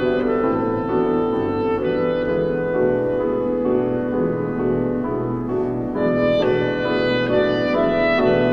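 Clarinet and grand piano playing a classical duet, the clarinet carrying the melody over piano accompaniment. A long held note sounds for about four seconds in the middle, with shorter moving notes before and after.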